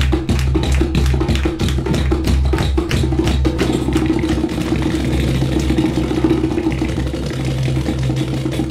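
Dance music for a belly-dance fusion routine, with a heavy bass line and sharp percussion hits; the hits thin out about halfway through, leaving sustained tones.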